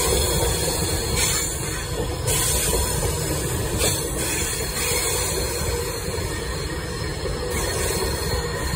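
Avanti West Coast passenger train running past close by, its coaches making a steady rumble and hiss of wheels on rail.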